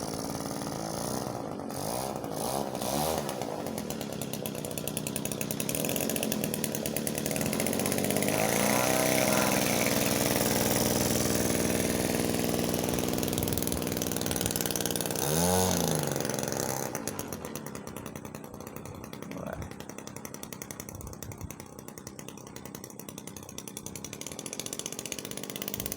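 Radio-controlled model airplane's motor and propeller running with a buzz, its pitch rising and falling as the throttle is worked. It runs louder for several seconds, then drops to a lower level about two-thirds of the way in.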